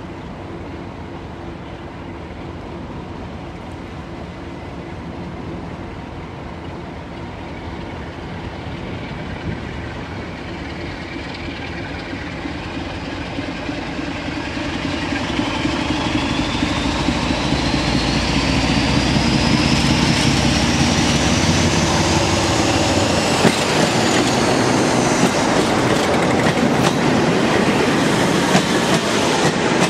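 Diesel locomotive approaching and passing with its train, its engine growing steadily louder. A high whine rises in pitch as it nears and then drops as it passes, about three-quarters of the way in, followed by the blue-and-grey coaches rolling close past with wheels clattering over the rail joints.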